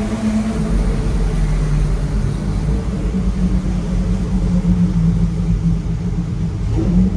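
Pagani Zonda R's V12 engine running at low, steady revs, a deep even drone with only small changes in pitch and no big rev.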